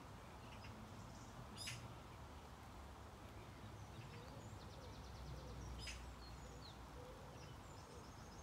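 Faint garden ambience: scattered distant bird chirps and a short rapid trill about halfway through, over a low steady rumble, with a couple of faint sharp clicks.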